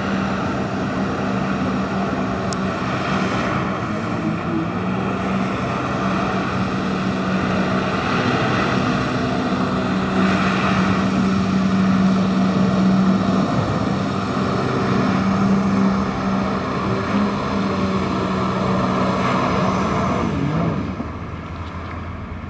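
Personal watercraft engine running hard to pump water up the hose to a water-powered jetpack, a loud steady engine tone over the rush of the jetpack's water jets. Near the end the sound drops away as the thrust is cut and the rider settles into the water.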